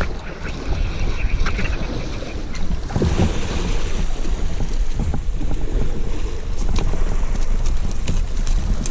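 Wind buffeting the microphone over sea waves washing against a rocky shore, a steady rushing noise.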